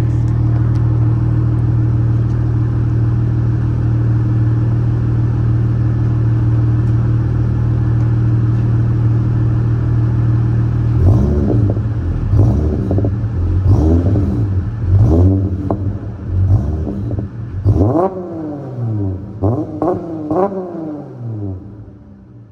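2021 Dodge Charger GT's 3.6-litre V6 through an exhaust with the rear mufflers deleted and the mid resonators kept, idling steadily. About halfway through it is revved in a series of quick throttle blips, the pitch rising and falling with each, then it settles back to a quieter idle near the end.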